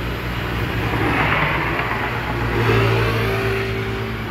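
Street traffic: a motor vehicle's engine running and passing close by, with tyre and road noise swelling and growing loudest about three seconds in.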